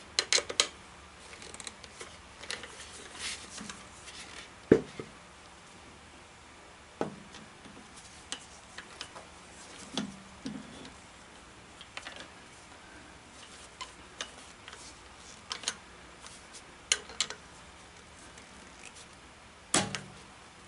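Scattered light clicks and knocks of things being handled, with a louder knock about five seconds in and another near the end, over a faint steady hum.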